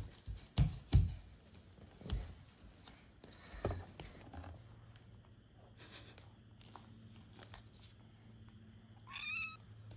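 A cat gives one short meow near the end, bending up and then down in pitch. Before it come a few dull thumps close to the microphone, the loudest sounds here, and from about four seconds in a low steady hum.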